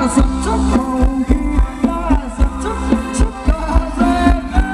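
Live Thai ramwong dance-band music with a steady, fast drum beat under held and bending melody notes.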